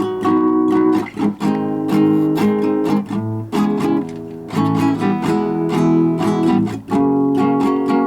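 Music led by a strummed acoustic guitar, chords changing about every second.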